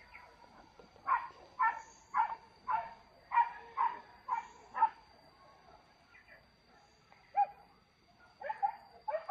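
Hunting dog barking in the forest, a quick run of barks about two a second, then a few scattered fainter ones and another cluster near the end.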